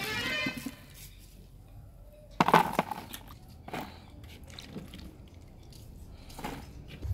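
Hands sloshing button mushrooms in a pot of water, then lifting dripping handfuls out with splashes and drips. There are a few short louder splashes and clatters as handfuls are moved into a plastic colander, the loudest about two and a half seconds in.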